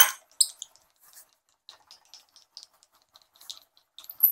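Light clicks, taps and scratches of tools and wood being handled on a workbench, opening with one sharp click. Near the end a high-pitched squeaking starts as a hand brace begins to turn.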